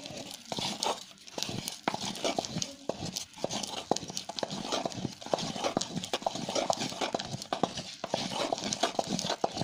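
A stirring stick knocking and scraping against a clay pot as thick ragi kali (finger-millet dough) is churned, in a quick, uneven run of knocks and soft thuds.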